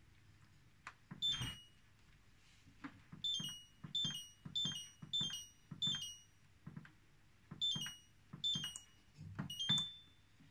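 Philips multicooker control panel beeping as its buttons are pressed to set the porridge program and cooking time: about nine short, high beeps that each step down in pitch, each with the soft knock of a fingertip on the panel.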